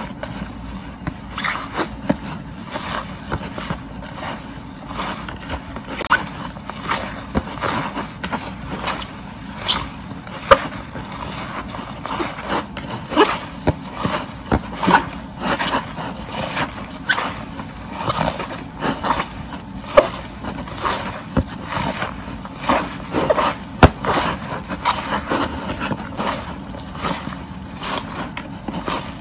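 Young cassava leaves being rubbed and kneaded by hand with a little salt against a wet plastic basin to soften them: a run of irregular wet rubbing and scraping strokes, roughly one or two a second.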